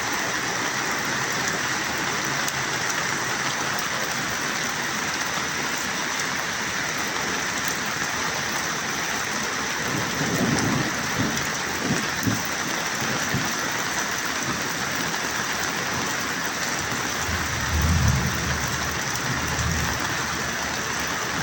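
Heavy rain making a steady, even hiss, with low rumbles swelling up twice, about ten seconds in and again near the end.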